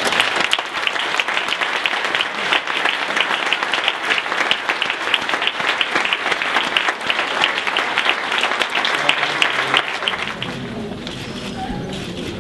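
Audience applauding a prize winner with steady, dense clapping that stops about ten seconds in and gives way to low voices.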